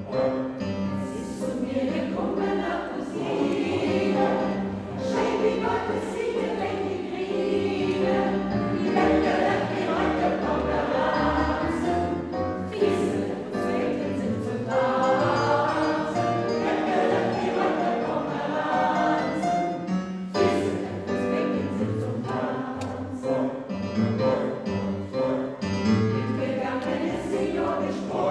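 A choir singing a piece in several voice parts, steadily throughout.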